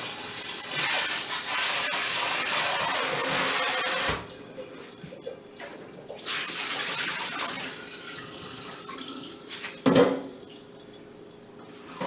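Kitchen tap running water into a metal cooking pot as it is rinsed out in a stainless sink. The water stops abruptly about four seconds in and runs again briefly a couple of seconds later. Near the end there is a single sharp knock.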